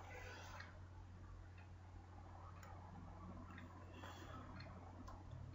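Near silence: a steady low electrical hum in the recording, with a few faint scattered clicks.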